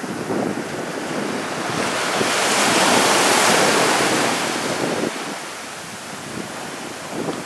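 Small surf breaking at the water's edge and washing up the sand, swelling loudest about three seconds in and easing off after about five seconds.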